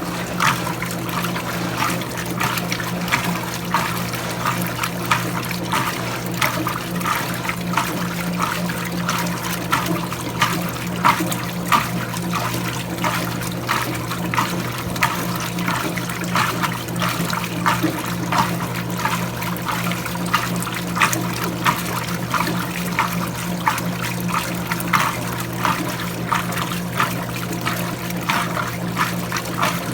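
Electrolux Prosdócimo washing machine running with water inside: a steady motor hum under frequent splashing and sloshing of water.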